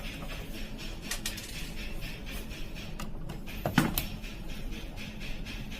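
Scattered light clicks and metallic clinks of tools and small parts being handled during a repair, over a steady low hum, with one sharper knock about four seconds in.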